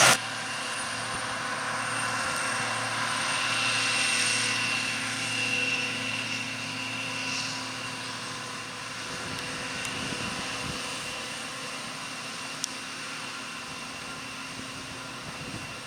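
Harvest machinery running steadily: an engine drone with several steady high-pitched whines, slowly easing off towards the end, and one sharp click about three-quarters of the way through.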